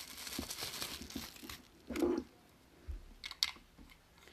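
Clear plastic wrapping crinkling and rustling in the hands as it is pulled off a small warmer bulb, for about the first second and a half. Then it goes quieter, with a soft knock about two seconds in and a few light clicks a little after three seconds.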